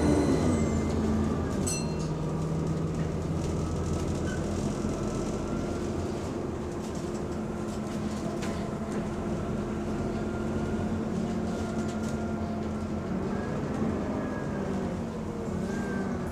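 Bus engine, drivetrain and cooling fan running as the bus drives, heard from a passenger seat in the saloon: a steady hum with several whining tones that drop in pitch about a second in, hold steady, then rise and fall again near the end as the bus changes speed.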